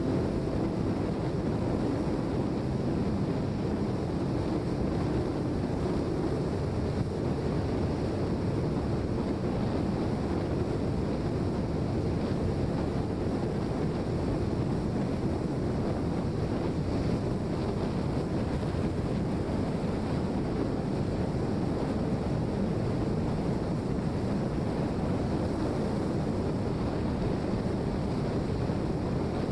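Steady wind rushing over the microphone, an even roar with no breaks.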